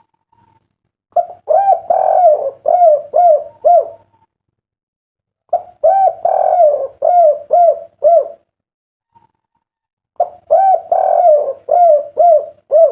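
Spotted dove cooing in its 'kuk three' song style: three phrases a few seconds apart, each a rolling coo of short notes around a longer blurred middle note, ending in a run of clipped 'kuk' notes.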